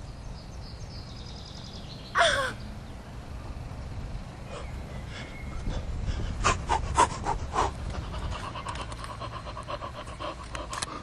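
A young man's short cry falling in pitch about two seconds in, then quick, heavy panting and gasps close to the microphone, about five breaths a second.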